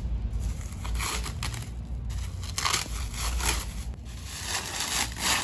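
Thin clear protective plastic film being peeled and crumpled by hand, in a run of irregular crinkling, tearing rustles over a low steady rumble.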